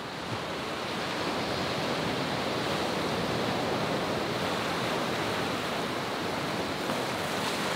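Ocean surf breaking: a steady rushing wash of waves and white water, swelling up over the first couple of seconds and then holding even.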